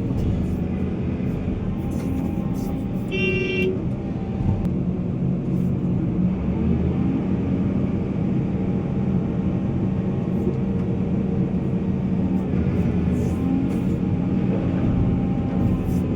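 Heavy diesel engine of mining machinery running steadily, with one short horn toot a little over three seconds in.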